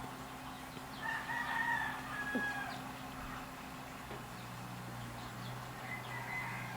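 A rooster crowing twice: one crow about a second in and a second near the end, over a low steady hum.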